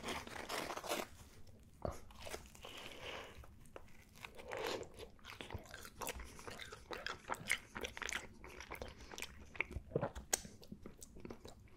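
A person biting into and chewing a slice of thick-crust pepperoni pizza, the crust crunching in many short, sharp crackles.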